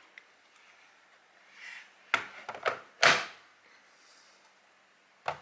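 Plastic clicks and knocks from the battery compartment of a Sony EBP-9LC battery-pack dock being handled and fitted back in place by hand. After a soft rustle come a few sharp clicks about two seconds in, the loudest knock about three seconds in, and one more click near the end.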